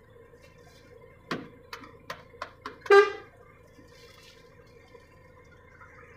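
Several light clicks as the diagnostic laptop's menu is clicked through, then a short pitched toot about three seconds in, over a faint steady hum.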